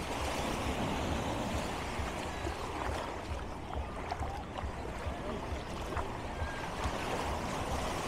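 Surf washing onto the beach: a steady, even rush of waves.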